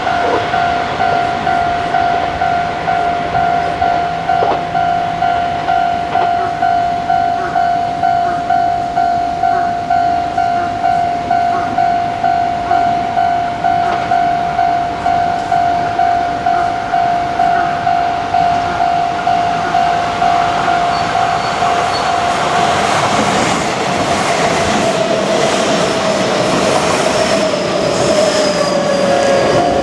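Japanese level-crossing warning bell ringing in a steady, repeating ding, about one and a half strokes a second. From about three-quarters of the way through, a Kintetsu train runs over the crossing with a rising rumble and clatter of wheels on the rails.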